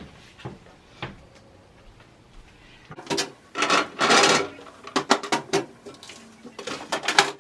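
Refrigerator drawers, shelves and food containers being handled during fridge cleaning: a few faint knocks, then, about three seconds in, a busy run of clattering knocks and scrapes.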